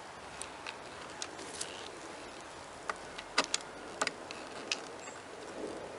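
Irregular small clicks and ticks of a screwdriver working a Phillips screw out of a plastic lawn mower handle, the sharpest cluster about three and a half to four seconds in, over a faint steady background hiss.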